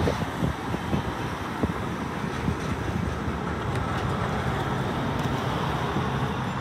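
Steady urban traffic noise around a B-class tram standing close by, a continuous low rumble with no distinct events.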